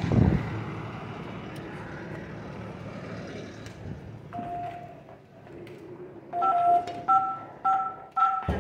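A thump, then a low background noise. From about four seconds in come touch-tone keypad beeps: one longer tone, then four short two-tone beeps, like a code being keyed in.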